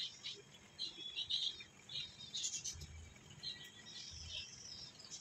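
Small birds chirping faintly in short, irregular calls.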